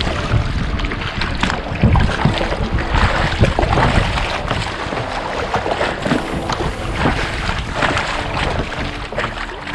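Strong wind buffeting the microphone, with a low rumble, over sea water splashing and slapping irregularly around a kayak.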